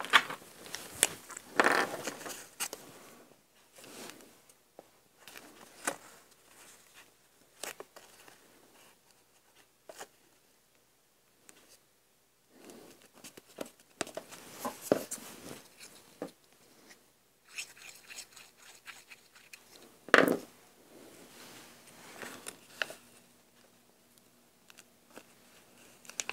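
Paper being handled and cut by hand: scattered rustles, snips and small clicks with quiet gaps, and one sharper snap about 20 seconds in.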